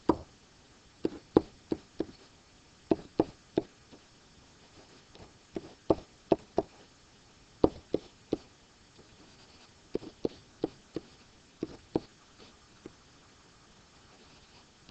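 A stylus tapping and knocking on a touch writing surface as letters are handwritten, with irregular sharp taps, singly and in quick clusters of two or three.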